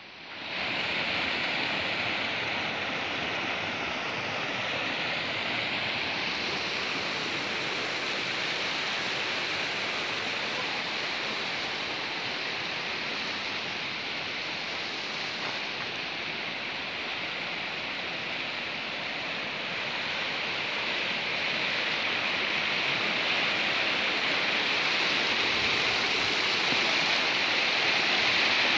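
Shallow, rocky mountain stream rushing over boulders and stones: a steady hiss of flowing water, growing louder over the last several seconds.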